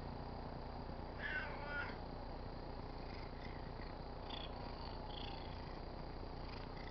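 Tabby cat purring steadily while rubbing on a car antenna, with one short meow about a second in.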